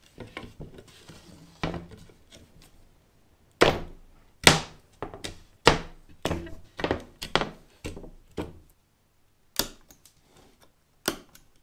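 End-cutting pincers levering old metal pins out of a wooden cupboard-door frame: a run of about a dozen sharp knocks and clicks, mostly packed together in the middle, with a couple more further apart near the end.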